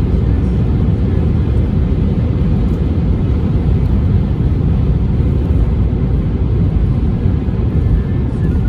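Steady low rumble of a car driving along a road: engine and tyre noise with no distinct events.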